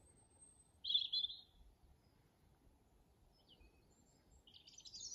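Garden birdsong: a short chirping phrase about a second in, then more chirps building near the end, over faint outdoor background noise.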